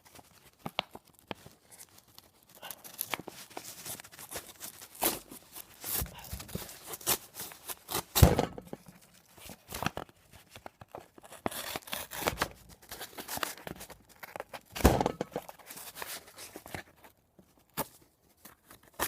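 Leatherman Skeletool's half-serrated, half-plain-edge pocketknife blade cutting a sheet of paper in irregular strokes, with paper rustling and a few handling knocks. Two strokes stand out louder, one just before halfway and one about three-quarters through. The blade is catching rather than slicing cleanly, which the user puts down to cutting at a poor angle.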